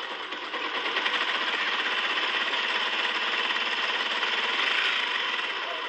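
Small electric motor and gears of a motorized metal construction-set model truck running, with a steady fast rattle from the bolted metal parts.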